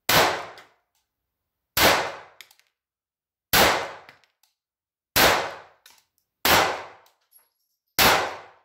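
ERMA 882 .22 LR small-bore pistol fired six times, one shot about every one and a half seconds, each shot dying away over about half a second.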